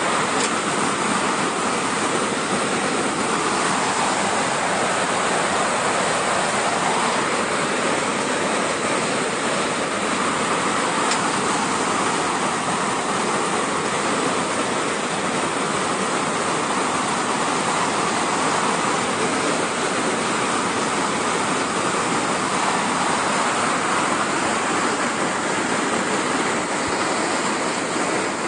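Steady, loud rush of muddy floodwater pouring in a torrent down a street.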